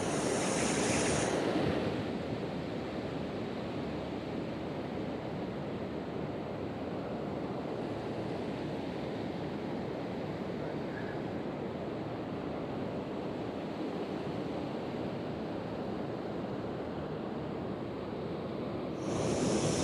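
Steady rushing of a shallow stream running over rocks and riffles. It is a little brighter and louder in the first two seconds and again in the last second.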